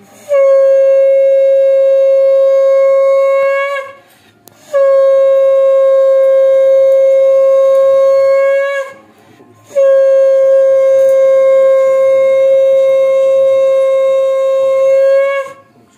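Conch shell (shankha) blown in three long blasts during a Hindu puja, each blast one steady note that lifts slightly in pitch as it ends; the third blast is the longest.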